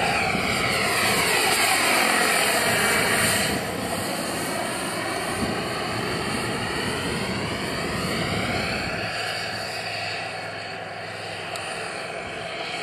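Gas-turbine engine of a jet-powered RC helicopter whining as it flies about overhead, its pitch sweeping up and down as it moves. It is loudest in the first few seconds, then a little quieter.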